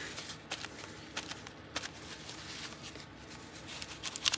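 Soft crinkling and light dabbing taps of a crumpled tissue pressed onto a damp, water-spritzed journal page, with a few quick rustles near the end.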